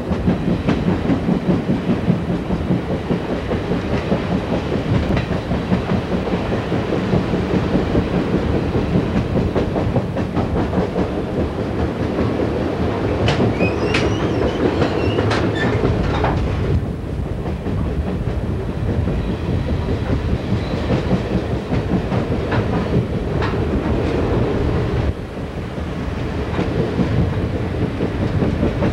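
VIA Rail Canadian stainless-steel passenger car riding the rails, heard from its open window: steady wheel-and-rail rumble with clickety-clack over the rail joints, and a brief high wheel squeal about halfway through.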